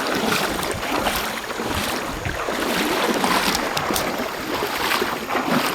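River water rushing over a shallow riffle, with splashing from wading and dragging a kayak upstream through it.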